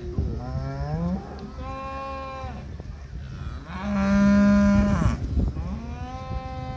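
Cattle mooing: four long calls in a row, the loudest about four seconds in.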